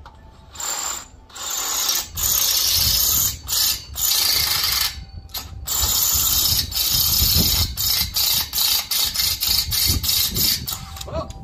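Power drill boring into a hardened steel bolt, its trigger pulled in bursts of about a second with brief pauses between, then in quicker, shorter bursts near the end. The bit is making slow headway against the hardened bolt even with oil on it.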